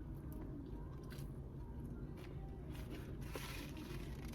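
Small crunches and scrapes of someone eating French fries, over a steady low hum.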